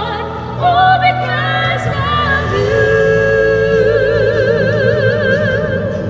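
Two women singing a slow song in duet with wide vibrato over a steady instrumental accompaniment, holding a long note from about two and a half seconds in.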